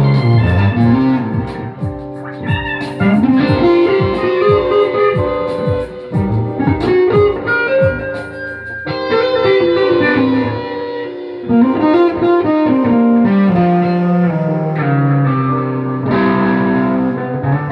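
Guitar music: plucked guitar melody with a bass line sliding up and down between notes.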